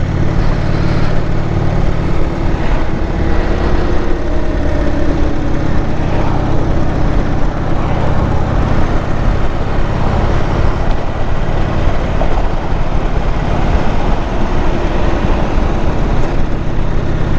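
Indian Chief Vintage motorcycle's V-twin engine running steadily while cruising at road speed, mixed with continuous wind and road rush.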